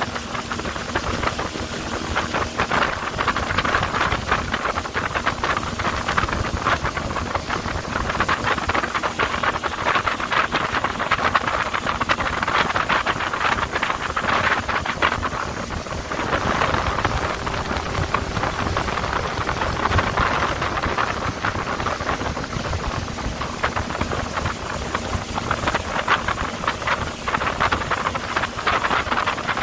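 Fishing boat under way at sea: a steady low engine hum under continuous rushing wind and water noise.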